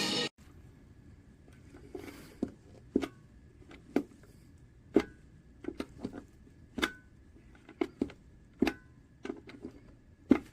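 About fifteen light clicks and taps at irregular intervals, some louder than others, over a faint steady high-pitched hum. Background music stops just as it begins.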